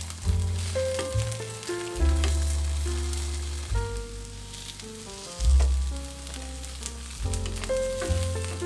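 Tofu slabs sizzling and crackling as they fry in oil in a nonstick pan, with background music of deep bass and held melody notes over it.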